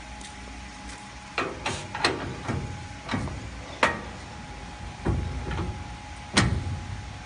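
Metal clacks and knocks as an aluminium profile and the clamp fittings of a double-head cutting saw are handled, about nine in a few seconds, the loudest about four and six and a half seconds in. A faint steady hum runs underneath.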